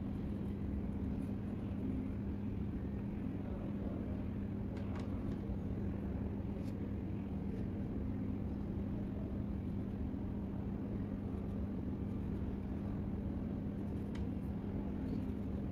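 Steady low background rumble with a constant hum, and a few faint clicks about a third of the way in and near the end.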